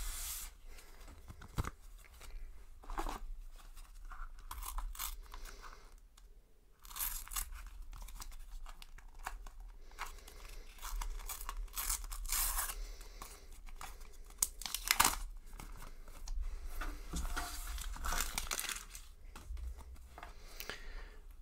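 A Panini sticker packet's paper-foil wrapper being torn open by hand, in a string of uneven tearing and crinkling sounds with a short pause partway through.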